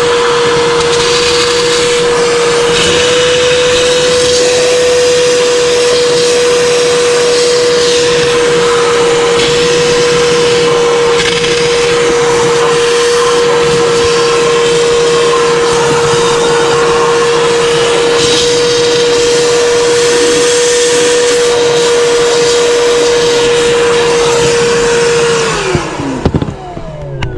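Wet/dry shop vacuum running steadily with a constant motor whine, sucking standing water out of an overflowing air-handler drain pan. Near the end it is switched off and the motor winds down, followed by a couple of knocks.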